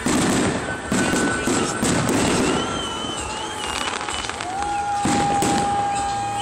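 Fireworks going off: a string of loud bangs with crackle, in two clusters, one near the start and one about five seconds in. Through the second half a long steady whistle tone is heard.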